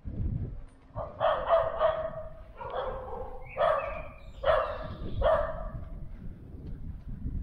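A dog barking: about seven barks in quick succession, starting about a second in and stopping after about five seconds.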